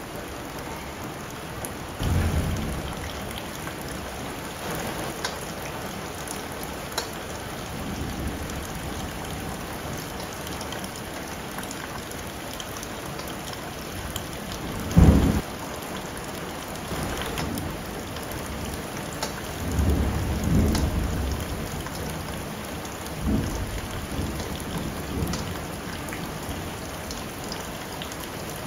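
Chopped onion and garlic sizzling in hot oil in a nonstick wok, a steady crackling hiss, with a few dull knocks from a slotted spoon stirring against the pan, the loudest about halfway through.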